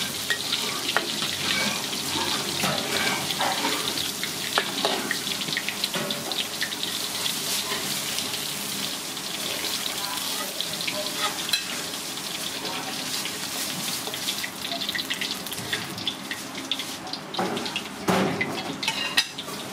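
Ribbon fish pieces deep-frying in hot oil in a wok: a steady sizzle dense with small crackles and pops. Near the end the sizzle thins and a few louder knocks stand out.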